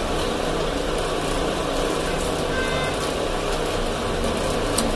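Steady background hum and hiss with no speech, and a couple of faint clicks near the end.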